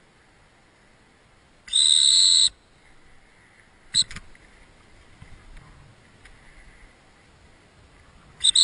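Dog-training whistle: one long steady blast about two seconds in, then a single short peep about four seconds in and two quick peeps near the end. The long blast is the stop signal, and the running retriever halts before being sent on with a hand signal.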